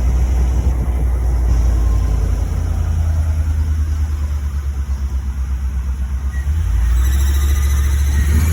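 2004 Chevrolet Silverado's 5.3-litre V8 running with a steady low rumble. Near the end a faint, repeated high-pitched chirping comes in over it: the chirp the owner is trying to track down.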